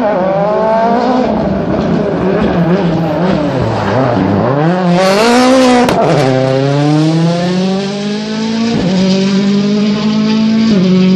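Rally car engine driven hard through a corner: the revs fall as it brakes and downshifts, climb steeply as it passes closest about five to six seconds in with a sharp crack, then rise again through upshifts as it accelerates away.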